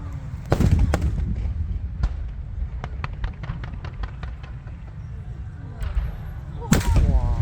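Fireworks going off: a heavy boom with a low rumble about half a second in and another near the end, with a run of sharp crackling pops in between. Crowd voices come in just before the end.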